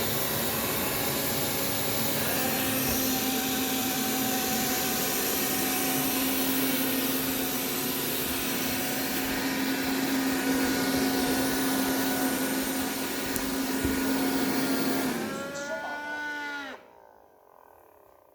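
Roborock S5 Max robot vacuum running, its fan noise carrying a steady humming tone: the strange sound that remains even after its vacuum motor has been cleaned. A little after fifteen seconds in the motor winds down, its pitch falling, and stops.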